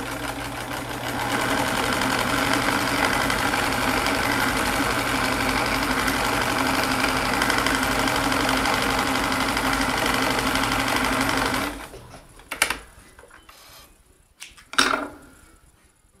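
Vintage Kenmore sewing machine running at a steady speed, stitching a multi-point stretch zigzag through stretchy power mesh. It picks up speed about a second in and stops abruptly near the end. Two sharp knocks follow a couple of seconds apart.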